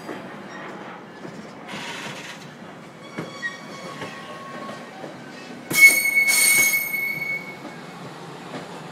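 Virginia Railway Express commuter train cars rolling slowly past, rumbling, with their steel wheels squealing. Short squeals come early, and a loud, high screech lasting about a second and a half starts about six seconds in.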